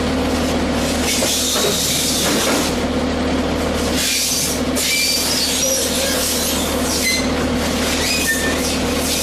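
Steady loud running of panel-factory production machinery: a constant hum and drone under a wash of noise, with many short, high squeals scattered throughout.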